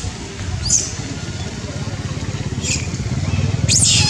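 Young macaque giving short, high-pitched squeals: one just under a second in, another near three seconds, and a longer string near the end. Under them a steady low engine rumble grows louder.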